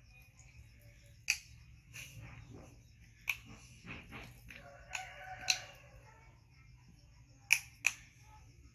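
A few sharp clicks and taps from a small plastic bottle being handled, spread irregularly over several seconds, with two close together near the end.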